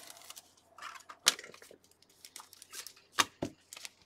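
Gloved hands handling trading cards on a tabletop mat: rustling and crinkling with sharp snaps, the loudest about a second in and again near three seconds in.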